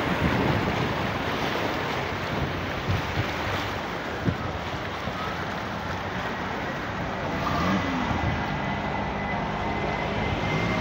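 Floodwater rushing and splashing around vehicles wading through a flooded road, with wind noise on the microphone. A low engine hum builds near the end.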